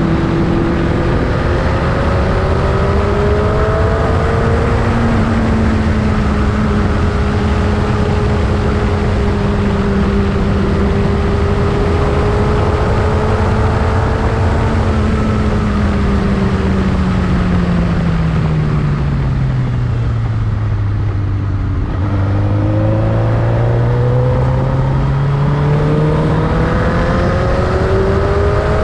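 Motorcycle engine running under way, with heavy wind noise. The engine's pitch climbs at first and then holds steady. About two-thirds through it drops away as the bike slows, then climbs again near the end.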